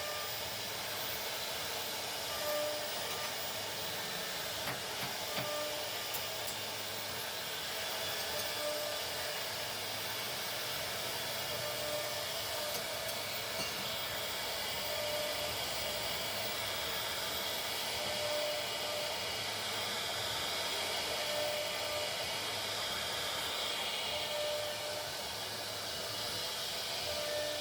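CNC router spindle running and cutting plastic: a steady hissing machining noise with a faint very high spindle whine that dips in pitch a few times.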